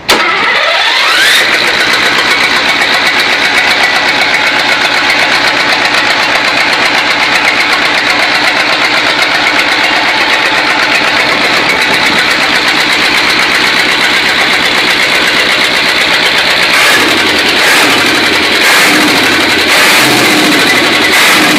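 Perkins V8 diesel engine catching and running up to speed in about a second and a half, on its first start after nearly ten years standing. It then runs loud and steady. From about 17 seconds in, its speed rises and falls.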